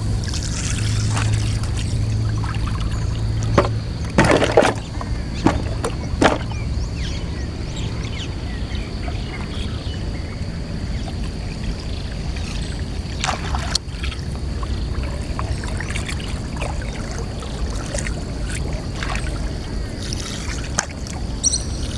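Water trickling and splashing as a fishing longline is handled at the water's edge, with a few short, sharper splashes or knocks about four to six seconds in and again midway.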